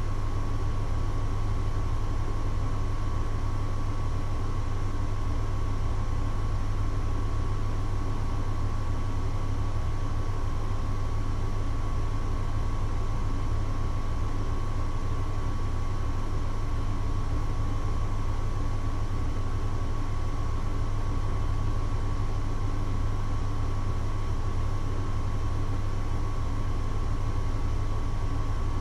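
Steady mechanical hum with a constant high whine over it, unchanging throughout.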